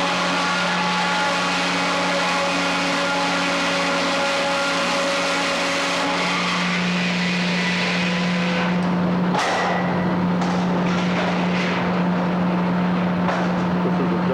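Frick 00 circular sawmill running: a steady mechanical drone with a constant hum throughout. From about nine seconds in, a series of knocks and clatter joins it.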